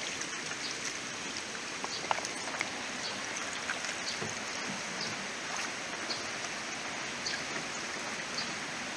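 Steady trickling water with scattered drips and small splashes, from catfish fry being sifted in a perforated grading basket set in a tub of water.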